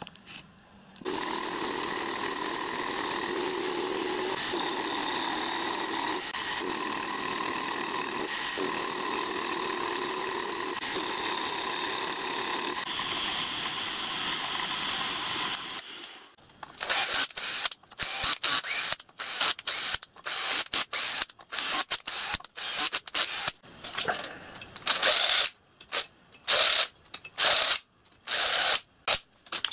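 A drill press runs steadily, drilling small holes in steel parts. About halfway through it stops, and a cordless drill follows in many quick short bursts, starting and stopping.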